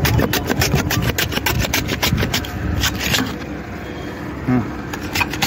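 Onions being sliced on a hand vegetable slicer: quick rasping strokes of the onion across the blade, about six a second, thinning out to a few separate strokes after about three seconds. A steady low rumble runs underneath.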